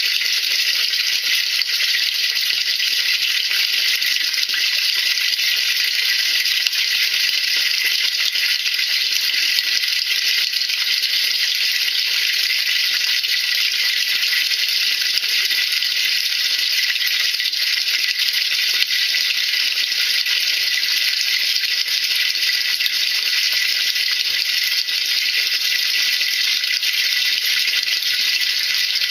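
Water in a washing machine tub being cleaned, a steady hiss with no breaks.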